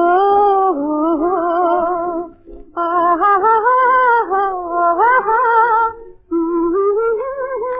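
A woman's voice humming the song's melody without words, in three long, wavering phrases, with short breaks about two and a half and six seconds in.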